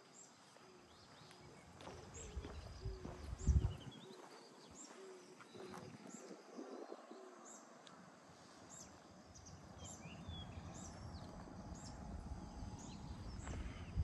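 Birds calling: a short, high chirp repeated every half-second or so, with a lower repeated note in the first half, over steady background noise. Two low thumps come about three seconds in and near the end.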